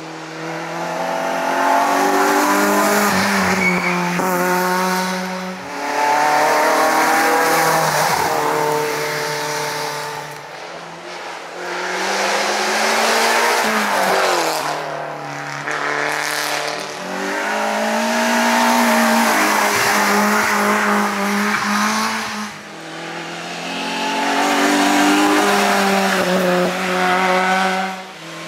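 Racing car engine at full throttle on a hill-climb run. The pitch climbs, then drops sharply at each gear change or lift for a corner, several times over.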